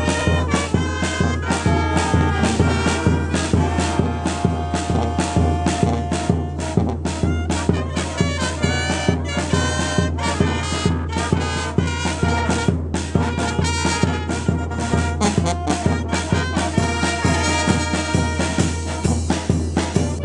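Mexican village brass band playing a tune with a steady beat: sousaphone on the bass line under alto saxophones, trumpets and trombones.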